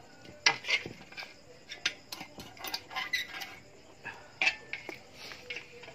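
Metal ladle knocking and scraping against the inside of a large metal cooking pot as chicken pieces in broth are stirred: a run of irregular clinks, loudest about half a second in and again just past four seconds.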